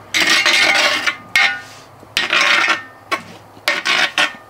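Metal spoon scraping and rubbing across the bottom of a pot while stirring a pan sauce, in several separate strokes about once a second.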